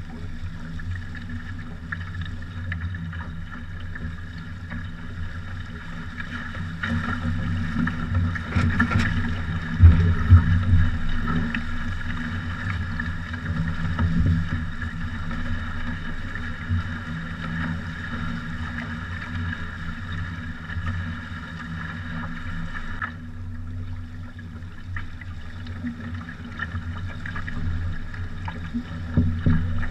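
Water rushing along the hulls of a trimaran under sail: a steady rush with a few heavier thumps of water against the hull, the loudest about ten seconds in.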